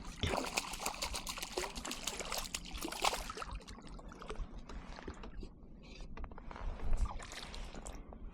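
Water splashing and trickling close by, with a dense spatter for about the first three seconds, then sparser drips and splashes.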